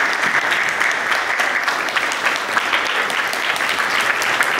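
A standing audience applauding: steady, sustained clapping.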